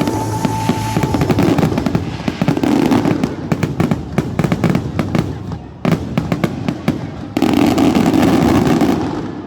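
Fireworks display finale: a rapid, dense barrage of bangs and crackles, then about a second and a half of a continuous roar that fades away near the end.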